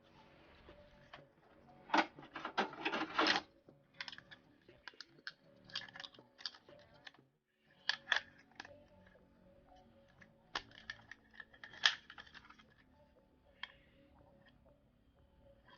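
Irregular plastic and metal clicks, taps and short rattles of computer hardware being handled, as a 2.5-inch SSD and its mounting parts are fitted into a desktop PC case. The densest clatter comes about two to three and a half seconds in, with single sharp clicks scattered after it.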